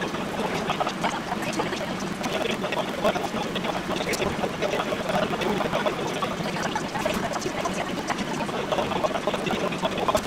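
Napolitan spaghetti with sausage sizzling in a frying pan, a steady crackle, with light clicks and taps of chopsticks as portions are lifted out.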